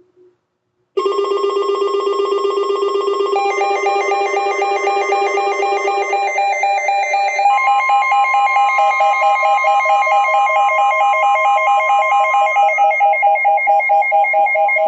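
Emergency alert attention tones: shrill electronic tones pulsing rapidly, starting about a second in. More tones join about 3 and 7 seconds in, one of them a steady high tone.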